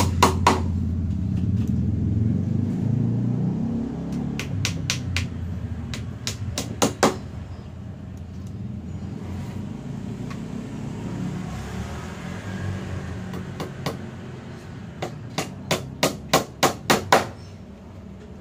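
Low motor rumble that gradually fades, with runs of sharp knocks, the longest a quick series of about seven near the end.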